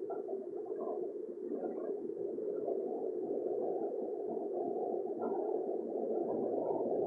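Low, muffled rumble of an approaching Metro train, growing slowly louder as it nears the platform.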